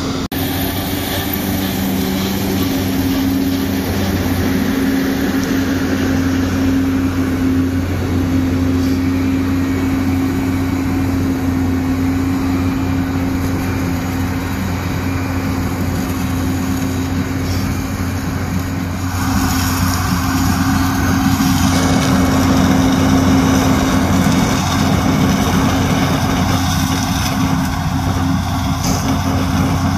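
New Holland CX 6.90 combine harvester running steadily while harvesting grain maize, a constant machine hum from its engine and threshing gear. About two-thirds of the way in, the sound grows louder, with more hiss on top.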